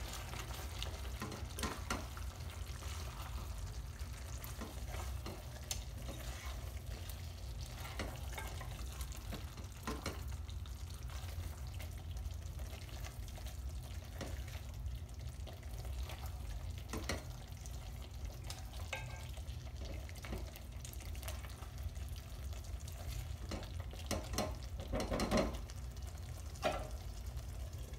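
A spatula stirring and scraping lamb curry in a metal pan, with irregular taps and scrapes against the pan sides over a steady low hum. A few louder scrapes come near the end.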